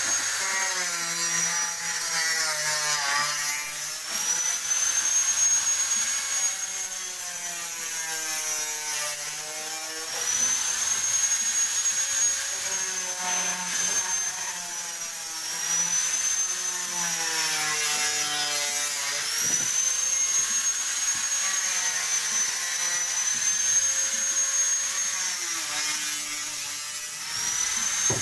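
Electric angle grinder running continuously against fibreglass hull ribs, a high whine that sags in pitch several times as the disc is pressed into the work and rises again as it is eased off.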